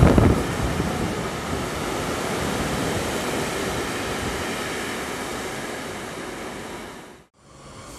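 Freight train of container and tank-container flat wagons passing at speed: steady wheel-and-rail noise with heavy low thumps at the start. It fades slowly as the last wagons move away, then cuts off sharply near the end.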